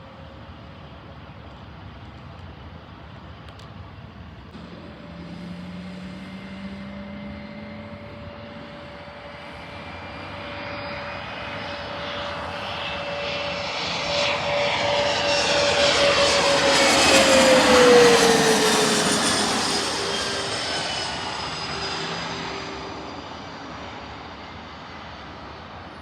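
An airplane flying low past the listener. Its engine sound swells slowly to a peak about two-thirds of the way in, its tones drop in pitch as it goes by, and then it fades away.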